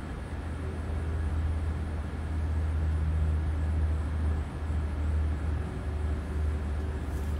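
Steady low rumble with a faint constant hum, swelling and easing slightly but never stopping.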